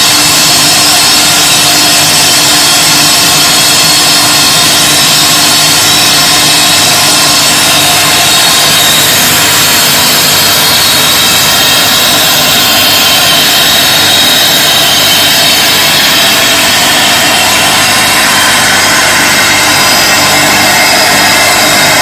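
Jam jar production-line machinery running: a loud, steady, even mechanical noise of the conveyors, cap feeder and capping and pasteurising equipment, with no distinct strokes or rhythm.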